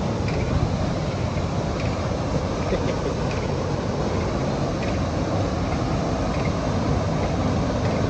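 Waterfall plunging into a rock pool: a steady, loud rush and roar of falling water with a deep rumble.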